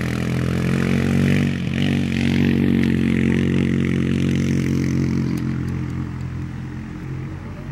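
Four-wheeler ATV engine running steadily as it drives across a lawn, dipping briefly about a second and a half in, then fading slowly as it moves away.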